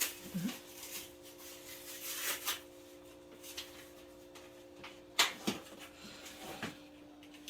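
Objects being handled: scattered rustling and sharp clicks, the loudest a little past halfway, over a faint steady hum.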